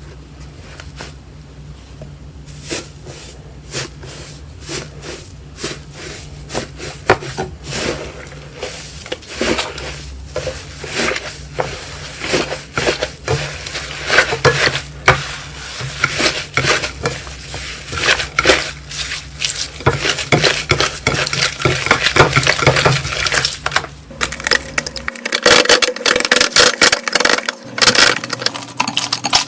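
Slime being pressed and squeezed by hand, giving a dense run of crackling clicks and pops that grows thicker and louder toward the end.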